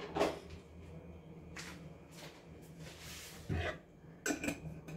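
A few light clicks and knocks from a plastic tumbler and its screw-on lid being handled, with one duller knock about three and a half seconds in as it is set down.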